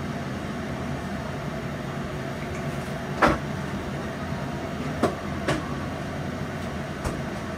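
Stovetop cooking noise: a stir-fry of tofu skin and vegetables sizzling in a wok beside a large pot of water at a rolling boil, a steady hiss and rumble. A few sharp knocks cut through: the loudest about three seconds in, two more around five seconds and a lighter one near the end.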